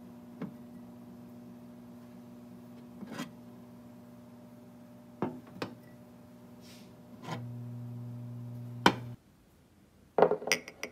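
Ceramic cups of hot soup handled in a microwave steam oven: a few light knocks and clicks over a steady electrical hum, which grows louder about seven seconds in and then cuts off suddenly. Near the end comes a quick cluster of ceramic clinks.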